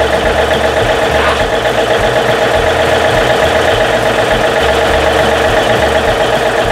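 John Deere compact tractor's Yanmar diesel engine idling steadily, just after a cold start following a winter parked.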